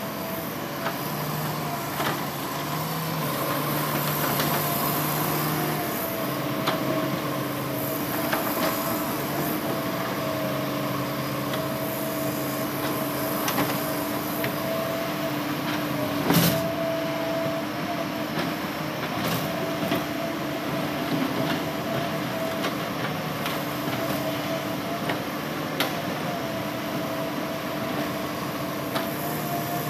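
Hitachi Zaxis 200-5G excavator's diesel engine and hydraulics running under load with a steady whine, while the bucket scrapes and knocks on broken rock; one louder knock about halfway through.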